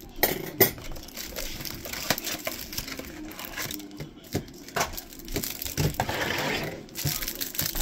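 Trading cards and their packaging handled on a table: scattered clicks and rustles, with a stretch of crinkling about six seconds in.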